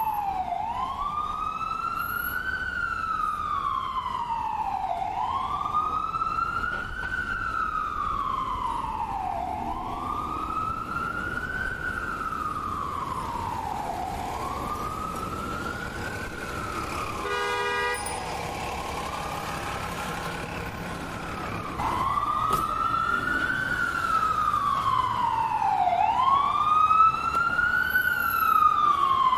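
Ambulance siren sounding a slow wail, each cycle rising quickly and sliding back down over about four to five seconds. About two-thirds of the way through the wail fades briefly, with a short burst, then comes back louder toward the end.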